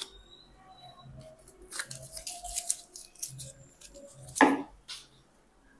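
A plastic Redcon1 Total War pre-workout tub being handled and opened: crinkling and clicking of the lid and seal, with one louder rustle about four seconds in.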